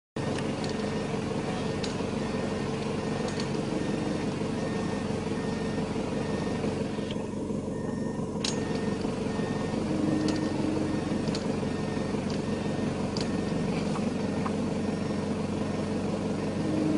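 A vehicle engine idling steadily, with a few faint clicks.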